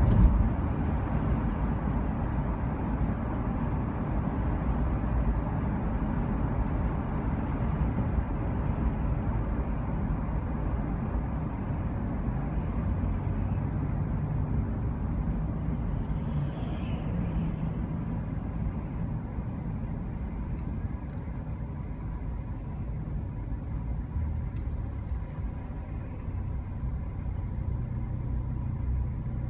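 Steady low rumble of a moving vehicle's road and engine noise, with a faint engine hum coming through about halfway in and again near the end.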